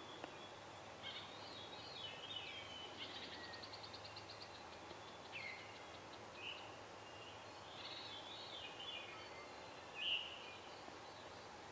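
Several songbirds singing, faint, with varied short whistled phrases and slurred notes, a fast trill about three seconds in, and a louder short call about ten seconds in.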